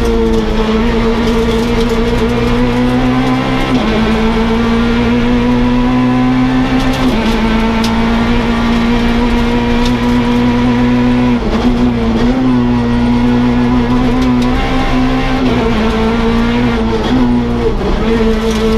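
Peugeot 208 R2 rally car's four-cylinder engine heard from inside the cabin, running hard at high revs. Its pitch drops briefly a few times at gear changes and lifts.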